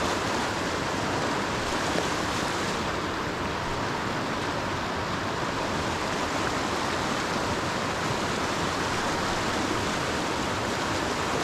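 Fast-flowing creek water rushing steadily, an even unbroken rush with no change in level.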